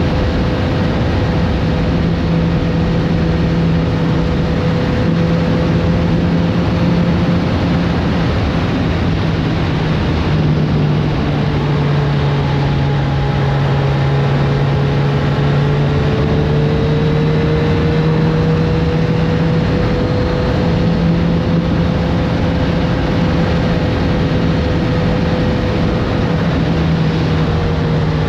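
Kawasaki Z900RS Café's inline-four engine running at a steady cruise under wind and road noise. Its pitch sags slightly about twelve seconds in and climbs back a few seconds later.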